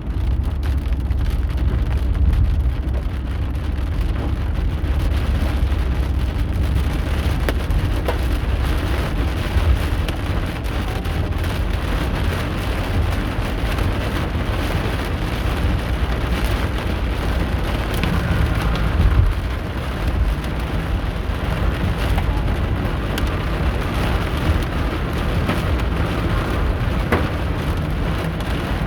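Hail and heavy rain pelting a moving car's roof and windshield, heard from inside the cabin as a dense, steady clatter of hits. The car's low road rumble runs underneath.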